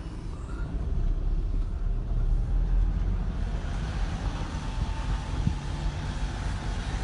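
A car or van being driven, with a steady low rumble of engine and tyres heard from inside the cabin; it grows louder about a second in.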